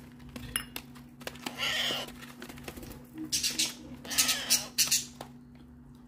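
Baby parrot chicks giving short, raspy begging squawks while being hand-fed formula: one about two seconds in, then several in quick succession around four to five seconds in.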